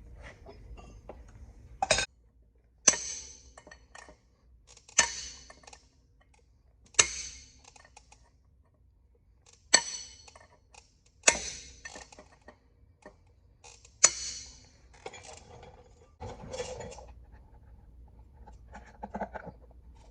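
Sharp metal-on-metal clanks, each ringing briefly: seven loud strikes a second or two apart, then softer knocks and rattles near the end.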